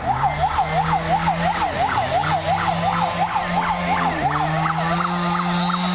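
Emergency vehicle siren in a fast yelp, sweeping up and down about four times a second and growing fainter in the last couple of seconds.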